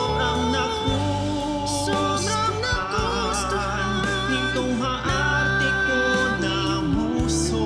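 A male voice singing a Tagalog ballad over instrumental backing, with echoing backing vocals; the melody wavers with vibrato and holds one long note about five seconds in.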